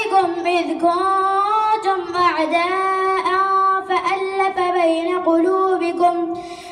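A boy's voice chanting a Quran recitation into a microphone, in long held notes that bend and glide with melodic ornaments. There is a short pause for breath near the end.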